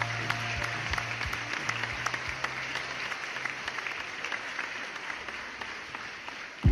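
Audience applauding, a dense spread of many hands clapping that thins a little near the end, with the last low note of the music dying away in the first three seconds.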